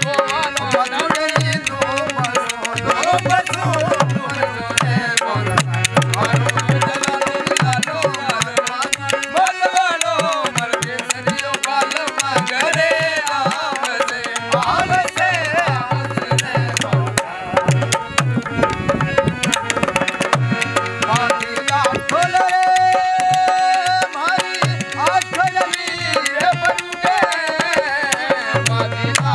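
Rajasthani folk music: a harmonium plays a sustained melody over a steady dholak beat, with khartal wooden clappers clicking sharply and a man singing.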